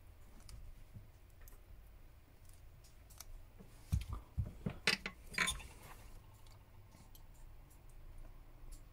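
A thin metal pry tool scrapes faintly along the glued edge of an HTC U Play's glass back cover. About four seconds in comes a quick cluster of sharp clicks and knocks as the metal tools and the phone are handled.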